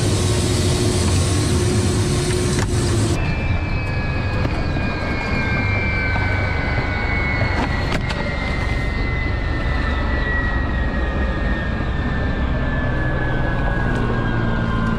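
Ka-52 attack helicopter: a steady engine and rotor rumble with a held tone in the cockpit for about three seconds. Then the landed helicopter's turbines are heard winding down: a whine falling slowly and steadily in pitch over a low rumble.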